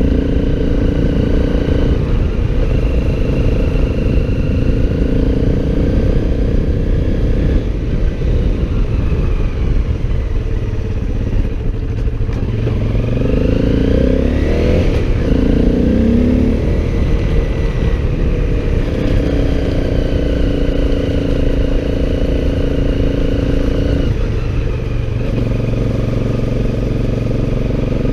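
Motorcycle engine running under way over a steady low rumble, its pitch dropping about ten seconds in and climbing again a few seconds later as it revs back up.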